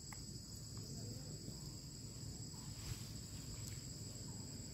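Steady high-pitched drone of forest insects, with a thin, higher steady tone above it, over a low rumble; a few faint short chirps come and go.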